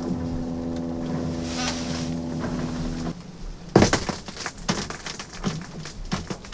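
A steady hum that cuts off abruptly about three seconds in, followed by one sharp knock and scattered light clicks and taps.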